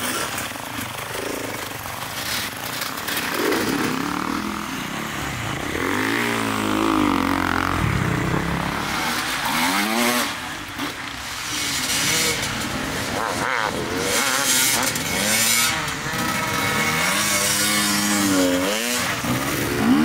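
Enduro dirt bike engines revving hard off-road, the pitch climbing and dropping again and again as the throttle is worked, with more than one bike heard at times.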